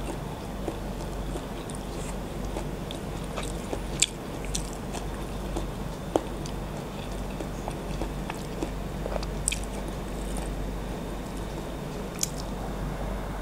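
Close-miked chewing of a chicken embryo egg that died during incubation: wet mouth clicks and smacks scattered through, the sharpest about four, six, nine and a half and twelve seconds in, over a steady low hum.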